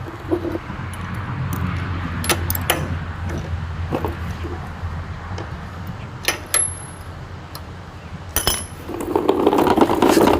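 Metal tools and small parts clinking and tapping in a run of short, sharp clicks, over a low steady rumble, with a louder rushing noise near the end.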